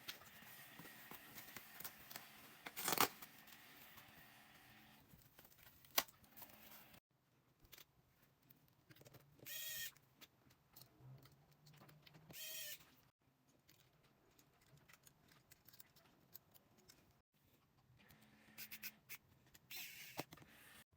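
Faint handling sounds of a laptop repair: small tools and parts clicking and tapping, with two short squeaks near the middle.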